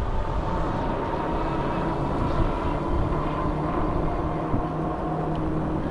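Fat-tyre electric bike riding along a trail: a steady motor whine that shifts a little lower past halfway, over tyre rumble and wind buffeting the microphone.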